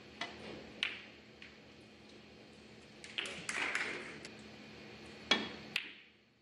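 Sharp clicks of snooker balls as the cue tip strikes the cue ball and the cue ball hits the object ball. There are a few single clicks, a cluster in the middle, and a loud pair of clicks about half a second apart near the end.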